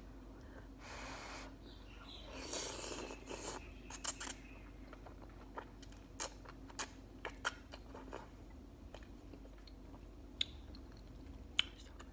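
A person slurping and chewing ramen noodles: a drawn-out slurp about three seconds in, then chewing with many short, sharp wet mouth clicks.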